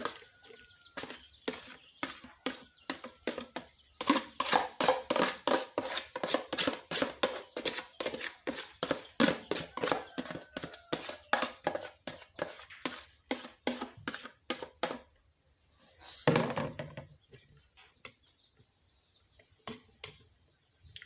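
Quick run of light knocks and scrapes, about three to four a second, as pounded herb mash is worked through a sieve into a drinker, with a louder noisy burst about sixteen seconds in.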